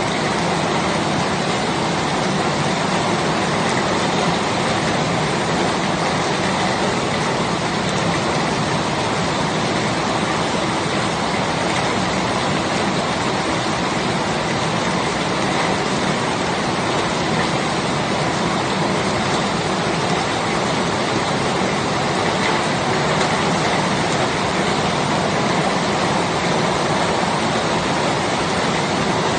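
Steady rain falling: an even hiss with no breaks or changes in level.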